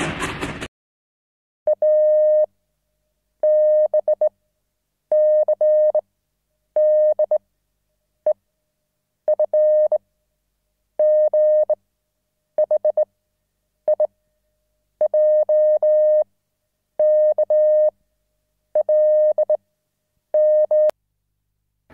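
A single steady mid-pitched electronic tone beeping on and off in an irregular pattern: mostly beeps of nearly a second, some broken into quick pieces, and a couple of very short blips, with silence between them. A sharp click comes just before the end.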